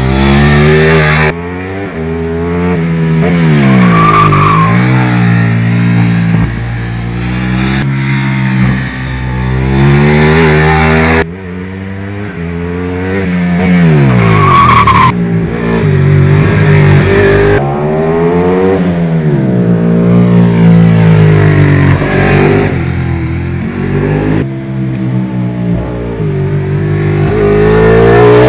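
Ducati 899 Panigale's Superquadro V-twin engine revving hard, its pitch climbing and dropping again and again as it accelerates and shifts, with the sound changing suddenly at several edits. Two brief high squeals come through, once early and once about halfway.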